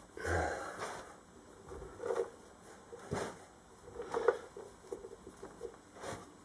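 Hands packing and pressing foundry sand into a tin can, heard as about five irregular bursts of scratchy scuffing of sand and skin against the can. There is a dull thump about a third of a second in.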